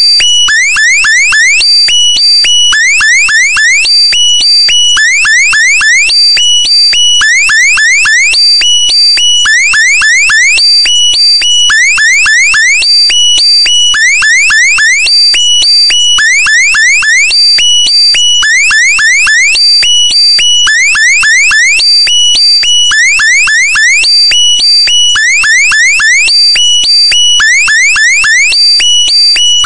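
Electronic alarm-type sound effect: loud groups of quick rising chirps over steady high beeping tones, repeating evenly about three times every four seconds.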